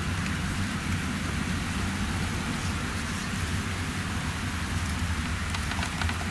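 Claas Lexion 760 TT combine harvesting maize with its 9-row Geringhoff corn header, heard from beyond the standing crop: a steady low engine drone under an even, hiss-like rush of machinery, with a few faint clicks near the end.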